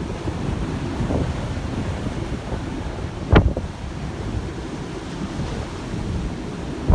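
Gale-force wind buffeting a camera microphone over the rush of heavy seas, with a sharp thump about halfway through.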